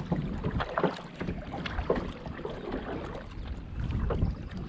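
Kayak paddle strokes: the blades dipping and splashing in the water, with drips, over a low rumble of wind on the microphone.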